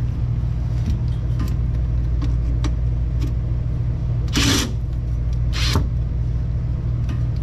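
Hand tools working on a rusted bolt under the car: light clicks and two short scraping noises, about four and a half and five and a half seconds in, over a steady low hum.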